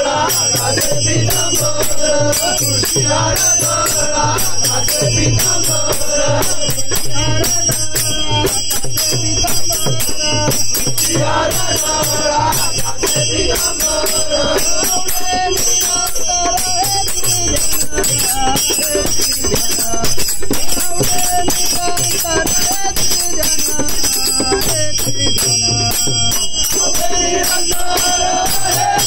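Marathi devotional bhajan sung by a group of men, accompanied by small brass hand cymbals (taal) ringing steadily on the beat, a pair of hand-played drums and hand clapping.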